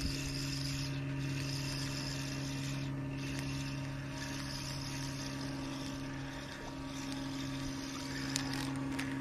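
Small quadcopter camera drone hovering nearby: a steady hum of its propellers with a fainter high whine above it. One short click sounds near the end.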